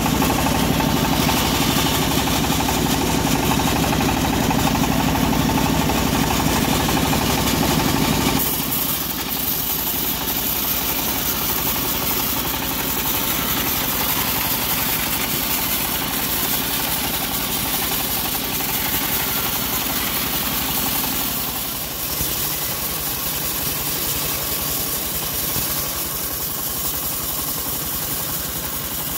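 Homemade engine-driven band sawmill running steadily while sawing an acacia log. About eight seconds in, the deep low hum drops away and the running sound turns lighter.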